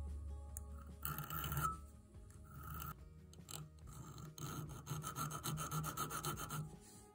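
Needle file rasping against the brass spindle of a fountain pen's piston mechanism, which is held in a vise. A couple of separate strokes come first, then a run of quick, closely spaced strokes in the second half, with soft background music underneath.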